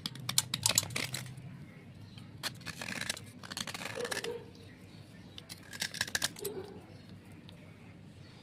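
Crisp crunching and crackling of clay slate in four short clusters of sharp clicks.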